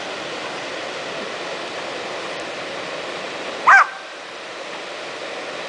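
Steady rush of a waterfall, broken by a single short, loud dog bark a little past halfway through.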